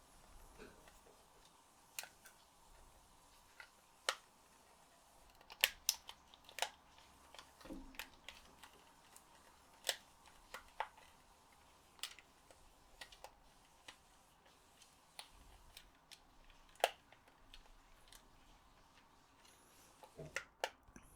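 Irregular small plastic clicks and taps of DualShock 4 controller parts being handled and fitted together, with a duller knock about eight seconds in.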